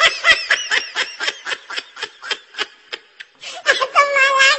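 A young monkey being tickled, giving quick high-pitched squeaky calls about five a second, then a longer held squeal near the end.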